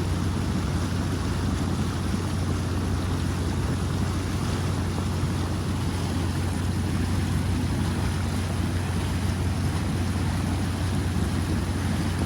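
Flash-flood water rushing down a creek bed: a steady, unbroken rush with a deep low rumble.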